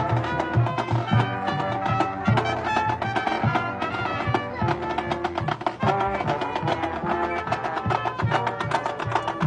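College marching band playing: brass holding pitched lines over a steady beat of drum and percussion hits.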